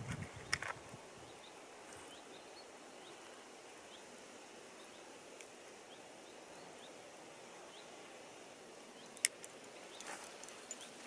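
Faint quiet forest ambience with a small bird giving short rising chirps every second or so, and a few sharp clicks about half a second in and again near the end.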